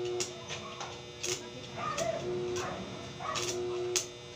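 Electric arc welding: the arc crackling and sputtering in short, broken spurts while the welding machine hums louder each time it draws current. The arc is hard to hold because the power supply is weak.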